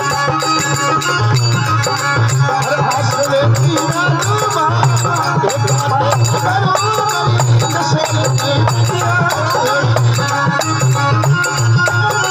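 Rajasthani folk devotional music: a steady drum beat with a shaker-like rattle under a wavering melody line, with no words sung.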